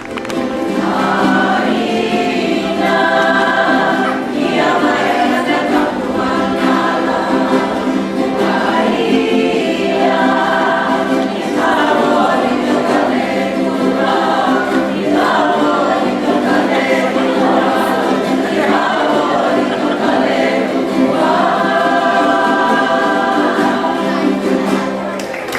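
A group of voices singing in harmony, choir-like, with long held chords over a constant low note.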